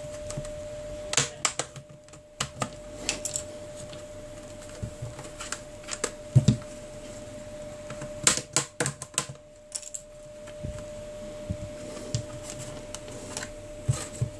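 Plastic back cover of a Samsung Galaxy Tab 4 10.1 tablet being pried off with a plastic pick: irregular sharp clicks and snaps in small clusters as the cover's clips release around the edge.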